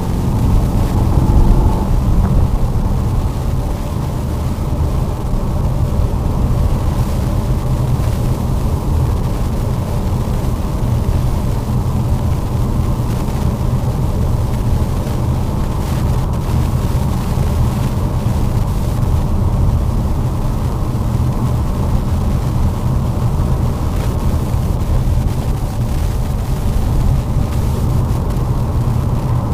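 Lada Vesta driving on a snowy road: a steady low rumble of engine and tyre noise.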